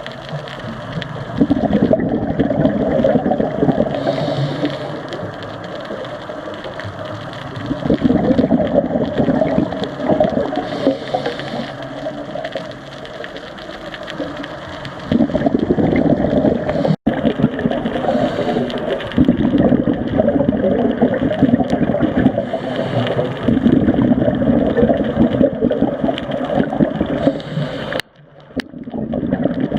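Scuba diver breathing through a regulator underwater: bubbling bursts of exhaled air lasting a few seconds each, alternating with quieter stretches of inhaling.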